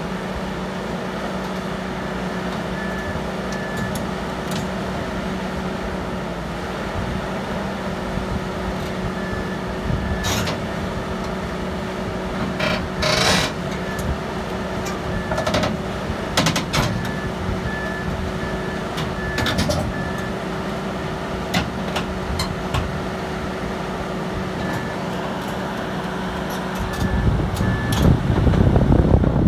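Diesel engine of a crawler rock drill rig running steadily at a constant pitch as the machine tracks onto a lowbed trailer, with a few sharp metallic clanks in the middle and faint short beeps now and then. A louder low rumble comes in near the end.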